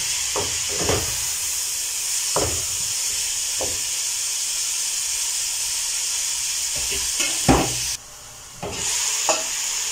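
Diced capsicum, carrots and peas sizzling in a hot pot while a spoon stirs them, with an even frying hiss and scattered light knocks and scrapes of the spoon on the pot. A louder knock comes about seven and a half seconds in, and the sizzle drops out for under a second just after.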